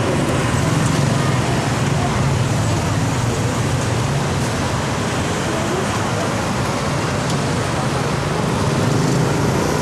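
Steady street traffic noise, a continuous wash of passing vehicles with a low engine hum.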